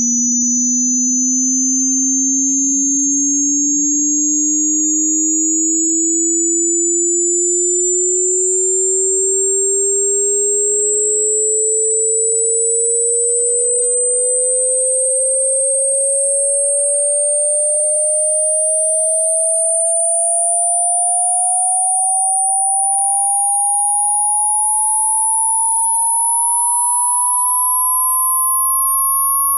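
Synthesized sine-wave tone sweeping slowly and steadily upward in pitch, from a low hum to a high whine, with a pair of high-pitched tones rising alongside it.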